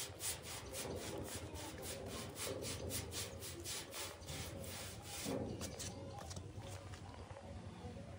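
Paintbrush scrubbing paint onto a metal sign board: a quick back-and-forth brushing, about three to four strokes a second, thinning out after about five seconds.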